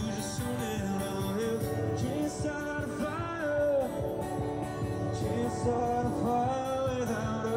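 Background music: a song with a singing voice.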